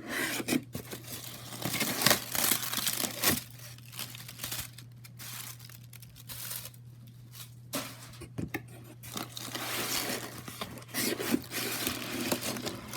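Paper packing and box packaging being torn and crinkled by hand, in irregular rustling spells.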